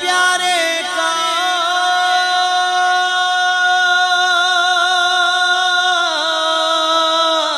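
A man singing a naat solo, holding one long sustained note for about six seconds, then breaking into a wavering, ornamented turn near the end.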